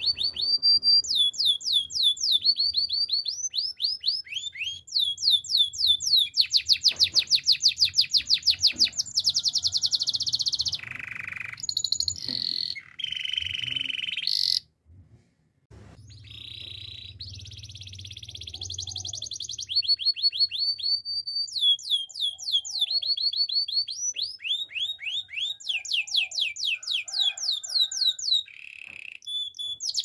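Domestic canary singing a long song of rapid trills and fast repeated sweeping notes, with a short pause about halfway through.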